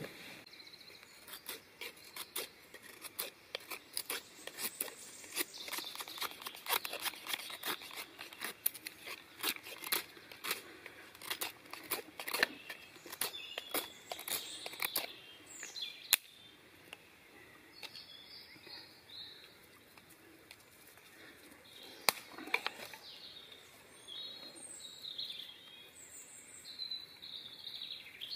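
Knife blade scraping along a stick in quick repeated strokes, carving curled shavings for a feather stick; the strokes thin out about halfway through. Small birds then chirp, and a single sharp crack sounds a little over two-thirds of the way in.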